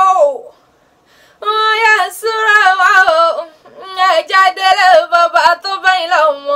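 A woman chanting Yoruba oriki (praise poetry) unaccompanied, in long wavering melodic phrases: one ends just after the start, then two more follow, each after a short pause for breath.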